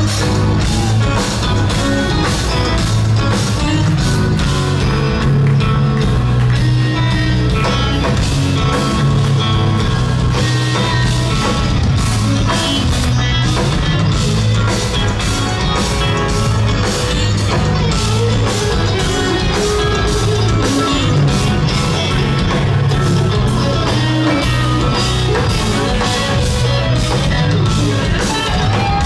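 Instrumental progressive metal band playing live: two electric guitars over a drum kit, loud and continuous.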